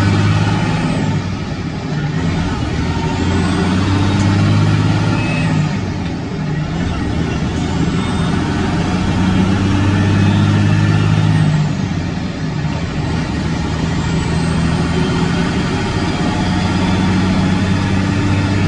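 Detroit diesel engine of a Freightliner Classic log truck running at road speed, heard from inside the cab, its note easing off and coming back a couple of times. A steady hiss of tyres on the wet road lies underneath.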